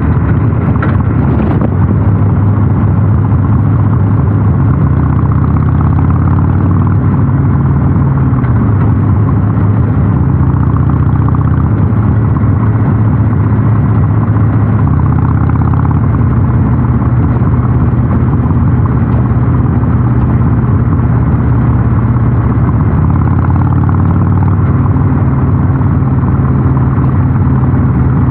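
Harley-Davidson Sportster 883 Super Low's air-cooled 883 cc V-twin running under way through North American-spec mufflers, a steady low exhaust note rising and falling a little with the throttle.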